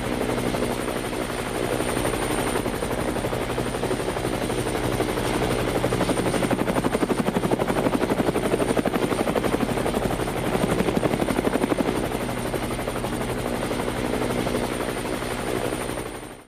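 Helicopter in flight, its rotor beating in a rapid, even chop with a thin high whine above it. The chop grows louder through the middle, then fades out at the end.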